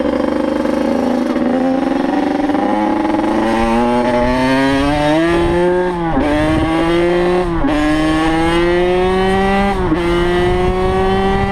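Yamaha YZ85's two-stroke single-cylinder engine pulling the dirt bike along, its pitch climbing steadily, then dropping sharply and climbing again about three times in the second half as the rider shifts up through the gears.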